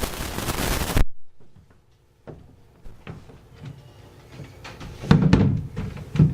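A loud rush of noise that cuts off abruptly about a second in, followed by quiet with scattered knocks and thumps, the loudest about five seconds in and another just before the end.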